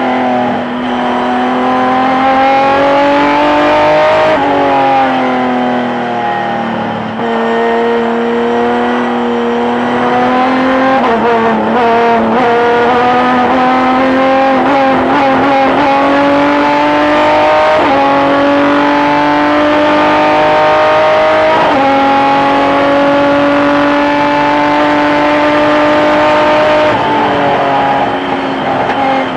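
Engine of a V6 racing pickup truck heard from inside the cockpit at racing speed. The engine note rises through each gear and drops at the shifts, and wavers and stutters unevenly between about 11 and 16 seconds in.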